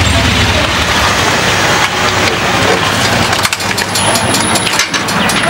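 Cruiser motorcycle engine running as the bike pulls up and stops, then idling with quick, even pulses several times a second.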